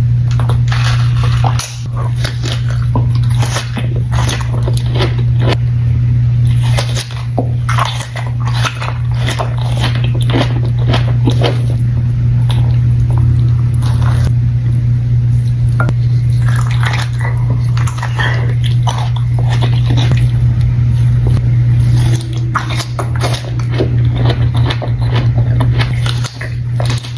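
Close-miked mukbang eating of a spicy onion boil: repeated bites and wet chewing with many short sharp clicks, over a steady low hum.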